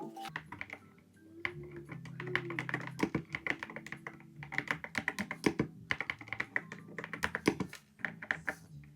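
Typing on an IRoboosta Sermon 400Pro 75% mechanical keyboard fitted with gummy bear keycaps: rapid keystroke clacks in quick runs with short pauses, over background music.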